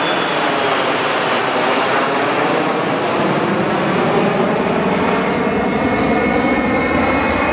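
Embraer ERJ-145 regional jet's two rear-mounted Rolls-Royce AE 3007 turbofans at climb power as it climbs away: a loud, steady jet roar. The high whine fades after a few seconds and the low rumble grows toward the end as the jet moves off.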